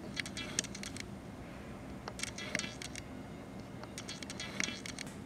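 Handling noise: three short clusters of light clicks and rattles, one near the start, one in the middle and one near the end, over a low steady room hum.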